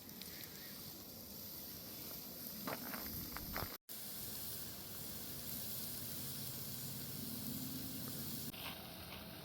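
Steady sizzling hiss of food cooking, with a few light clicks about three seconds in and a momentary dropout just after.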